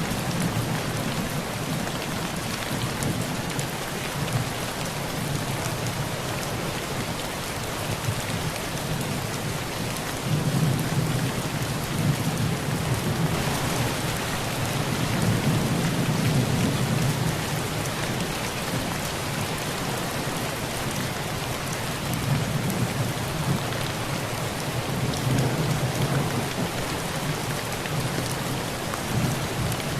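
Heavy rain falling steadily on a tin roof, with low thunder rolling and swelling several times underneath.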